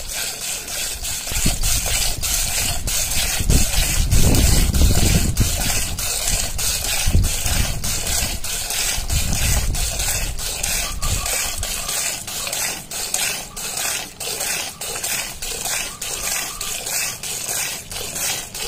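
Hand milking a cow: squirts of milk hitting the frothy milk in a steel pot in a steady, quick rhythm, with a few low rumbles along the way.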